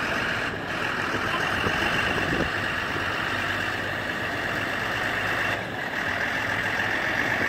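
Steady engine-like machine noise with a strong hissing upper band and a faint low hum, dipping briefly about half a second in and again around six seconds in.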